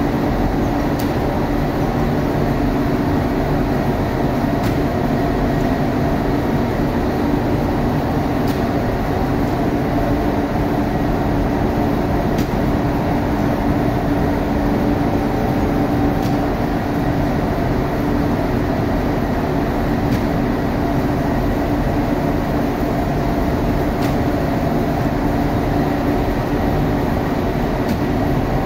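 Steady machine drone of a conveyor bread oven running, a constant hum with a faint click about every four seconds.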